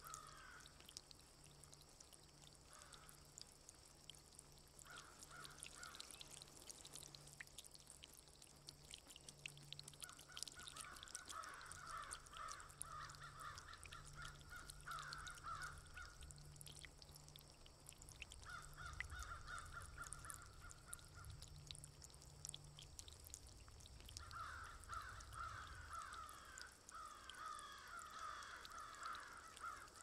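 Birds calling in runs of short, repeated calls, several times over, above the faint patter and drip of rain.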